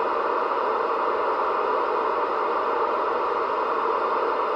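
CB radio static: steady hiss from the radio's speaker between transmissions, with a faint steady tone underneath.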